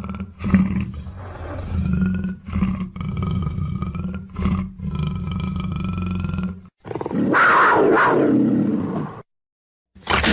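Big-cat sound effects built from black panther and cougar recordings. A run of low, rasping growls with brief breaks is followed, about seven seconds in, by a louder, harsher roar lasting a couple of seconds that cuts off suddenly. After a moment's silence, another roar starts at the end.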